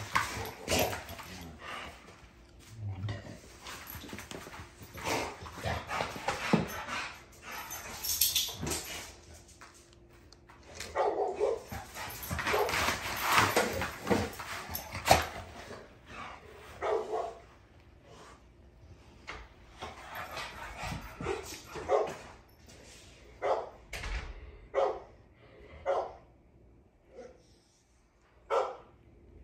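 American bully dogs barking and yipping during rough play, with some whimpers; short calls come in thick clusters at first, then as separate, spaced-out barks near the end.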